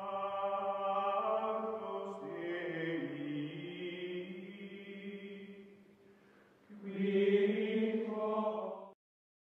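Channel outro music of long held chords with a choir-like chanting sound. The chords change a few times, fade about six seconds in, swell again, and cut off abruptly near the end.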